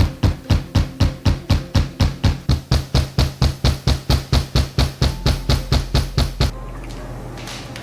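A fast, even series of sharp knocks, about four to five a second, each decaying quickly, stopping abruptly about six and a half seconds in and leaving a steady low hum.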